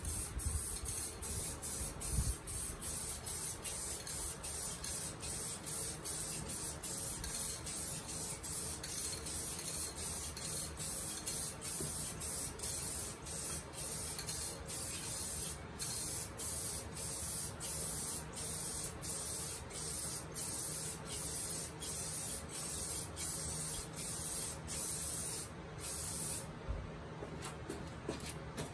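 Aerosol spray can of clear coat hissing in many short bursts, about two a second, with a short pause near the end.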